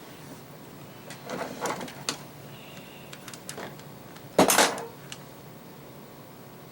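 A handful of sharp clicks and knocks from small hard objects being handled, with the loudest, a brief clatter, about four and a half seconds in.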